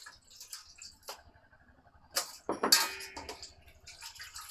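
Kitchen dishes and utensils being handled: a few light clicks, then a clatter about two seconds in as a dish or bowl is knocked or set down, ringing briefly.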